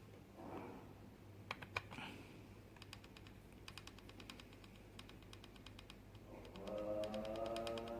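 Runs of rapid light clicking from small hand tools working on a laptop's screws and parts. Background music comes in about six and a half seconds in.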